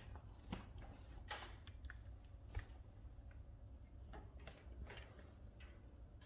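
Oak firewood burning in a Leda wood-burning stove, crackling with irregular faint pops and snaps over a low steady rumble.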